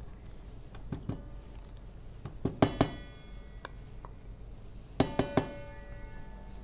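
A utensil knocking against a stainless-steel mixing bowl as compound margarine is added to the dry ingredients. There are a few sharp knocks, with two louder clusters about a third of the way in and later on, and each cluster leaves the bowl ringing.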